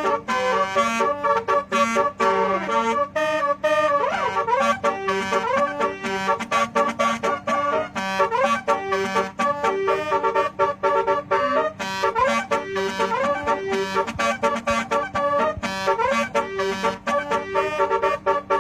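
A basuri telolet-style multi-tone horn playing a fast melody in short, choppy notes, with sliding notes here and there.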